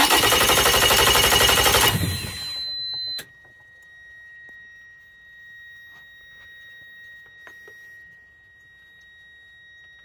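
Yamaha four-stroke outboard's electric starter cranking the engine with a fast, even rhythm for about two seconds, then quieter for about another second before it stops. It is cranking normally, with the corroded, high-resistance battery cables that made it sluggish now replaced. A multimeter's continuity beeper holds a steady high tone throughout.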